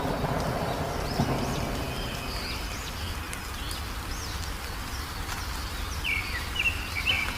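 Wild birds chirping and whistling, short high calls overlapping, with a few quick falling chirps near the end, over a steady low rumble.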